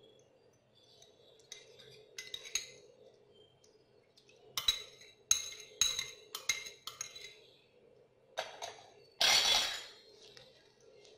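A spoon clinking against a small ceramic bowl, about six sharp ringing taps in quick succession, as the last of the dressing is knocked out of it. A louder, harsher scrape follows near the end.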